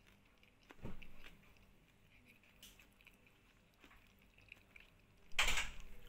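Faint eating sounds: quiet chewing and small clicks, with a low knock about a second in and a brief louder noise near the end.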